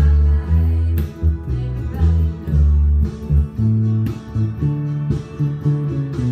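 Fender Precision electric bass played fingerstyle, a steady line of separate low notes, each held about a quarter to half a second, moving around a scale in the key of A.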